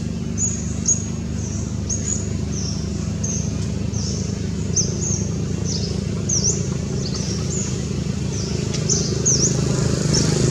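Steady low engine-like hum, with short high bird chirps repeating about twice a second over it.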